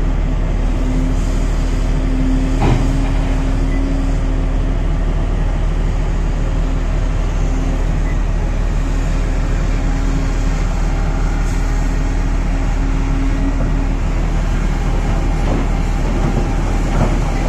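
Volvo EC950E crawler excavator's diesel engine running steadily under load as it dumps, swings and digs, with a steady hum over the engine noise for most of the time. One sharp bang about three seconds in and a smaller knock near the end.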